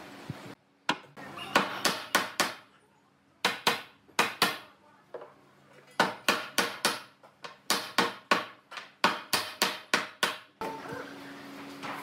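Hammer blows on wood, about two dozen sharp knocks in quick runs of two to five with a short pause near the middle, driving the tabletop of a stump-legged table down onto its leg through a wooden block.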